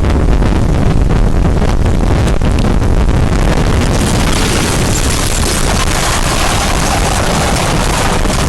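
Loud tornado-storm wind rumbling and buffeting against the microphone. A steady hiss builds in from about four seconds in.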